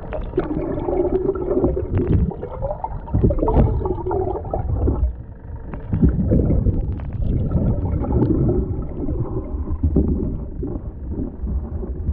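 Muffled underwater sound of water gurgling and sloshing around a submerged camera, with a steady low rumble. A wavering hum comes and goes during the first half.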